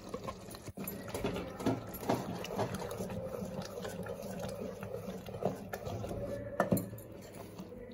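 A spoon stirring a thick mutton curry of mashed gongura and chukka greens in a metal pot, with quick irregular knocks and scrapes against the pot over a steady low hum.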